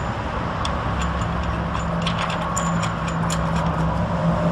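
Steady low mechanical rumble like a motor or engine running, with a low hum joining about a second in, and scattered light metallic clicks from the pulley assembly being handled.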